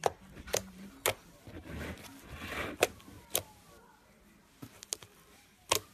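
Thick slime being pressed and poked with the fingers, giving about eight sharp pops as trapped air bursts, irregularly spaced. There is a softer squishing about two seconds in.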